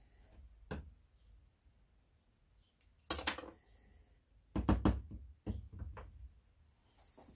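Small metal brake parts being handled on a workbench as a Honda CB750 front brake master cylinder is stripped. A sharp metallic click about three seconds in, then a run of knocks as the cylinder body, its piston and its spring are set down on the bench.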